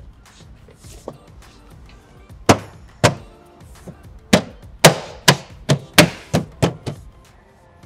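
A fist striking a new BMW F22 side skirt to knock it onto its mounting clips: about ten sharp knocks, two in the first half and a quicker run of them in the second half, over background music.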